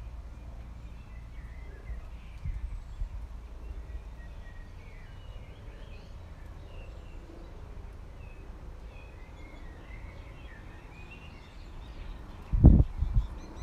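Small birds chirping and twittering faintly over a steady low rumble. Near the end comes a short cluster of loud low thumps.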